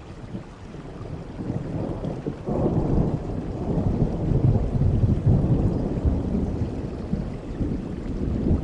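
Rain falling steadily, with a long low roll of thunder that builds sharply about two and a half seconds in.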